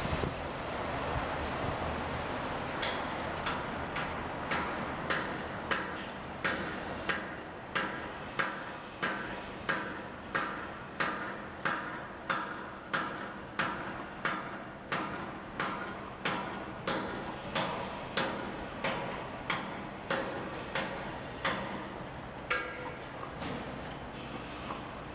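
A hammer striking structural steel. It makes a steady run of ringing metallic blows, about one and a half a second, starting a couple of seconds in and stopping near the end, over a steady background rumble of the construction site.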